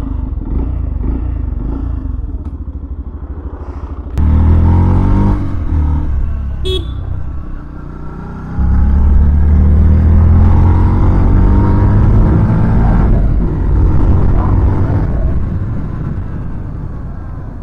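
Yamaha FZS FI V3's 149 cc single-cylinder engine idling, then pulling away and accelerating, its pitch rising in steps with a drop between gears, easing off toward the end.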